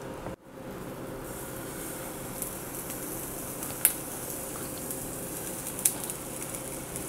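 Pancake batter sizzling in a hot, butter-coated cast iron pan as it is poured in; the high hiss grows about a second in, with a couple of sharp pops.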